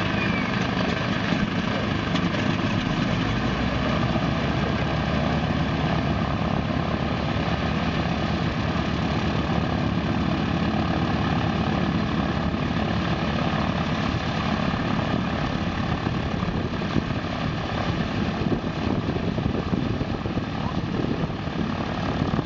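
Lisunov Li-2's two nine-cylinder, air-cooled ASh-62IR radial engines running steadily on the ground, both propellers turning.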